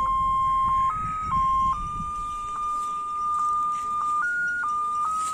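Choon paan bread tuk-tuk's electronic jingle playing from its loudspeaker: a simple tune of plain beeping notes, one at a time, each held for about half a second to two seconds. A low rumble runs underneath.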